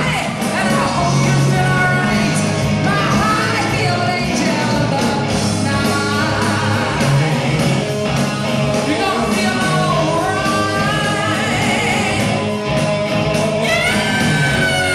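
Live rock band playing, a woman singing lead over electric guitars, bass guitar and drums, in a large hall. Near the end a long high note slides slowly down.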